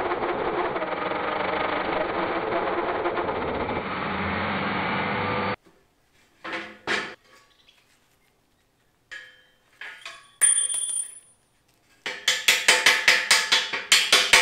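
Vevor MD50 magnetic drill press cutting through a steel beam with a 2 3/8-inch hole saw, heard sped up as a steady grinding run that cuts off abruptly after about five and a half seconds. Then a few scattered clinks, and near the end a fast run of sharp knocks, about four a second.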